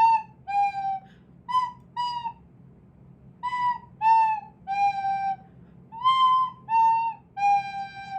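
Recorder played haltingly by an unpractised player: a string of short single notes on a few neighbouring pitches, stopping and starting, with a pause of about a second a little over two seconds in.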